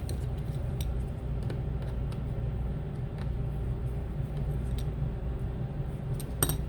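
Light clicks and taps of small tools and parts being handled while an iPod is taken apart, with one sharper click near the end, over a steady low hum.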